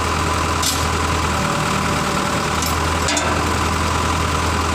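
Engine running steadily at idle with a low hum, with two brief clicks about a second and three seconds in.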